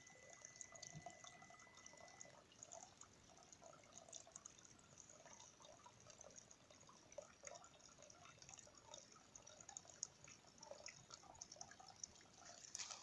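Faint trickling water with many small irregular drips and plips.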